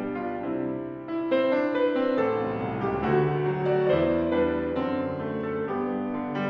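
Solo grand piano playing a zamba, an Argentine folk song, with held chords and a melody line; the sound dips briefly and a new chord is struck about a second in.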